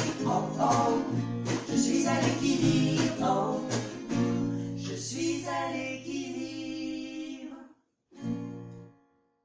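Two women singing the close of a French pop song over two strummed acoustic guitars, a steel-string and a nylon-string classical. About five seconds in the voices hold a long last note over ringing chords, which stop suddenly. One short final strum follows and rings out near the end.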